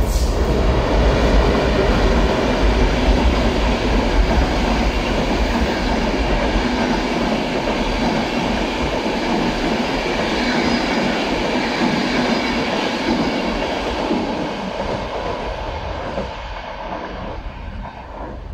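Polish EP09 electric locomotive hauling a rake of Intercity passenger coaches through the station, with the steady rumble of wheels on rail as the coaches go by; the sound fades away over the last few seconds as the train draws off.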